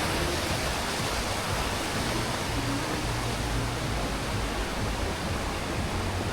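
Waterfall's falling water, a steady rushing noise.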